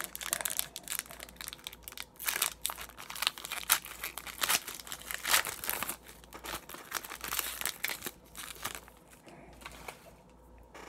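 Foil wrapper of an Upper Deck hockey card pack crinkling and tearing as it is ripped open by hand, a dense run of crackles that dies down near the end as the cards are slid out.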